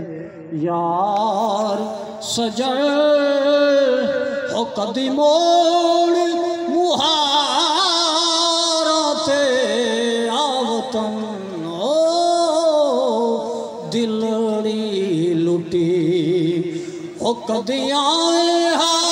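A man singing a devotional Sufi kalam into a microphone, with long held notes that waver with vibrato and ornamented turns.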